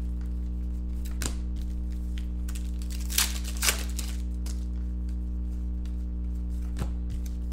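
Foil trading-card pack wrappers crinkling in a few short rustles as the packs and cards are handled, over a steady low electrical hum.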